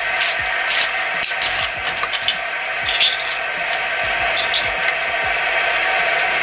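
Thin plastic packaging bag crinkling and rustling as it is handled and pulled open, with many small sharp crackles.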